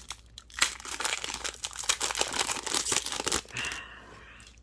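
Foil booster pack wrapper crinkling and crackling as it is torn open and handled, dying away near the end.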